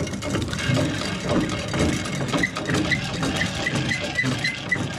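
Boat engine idling with a steady low rumble. From about halfway through there is a run of light, even ticks, about four a second, from the hand-cranked fishing reel being worked.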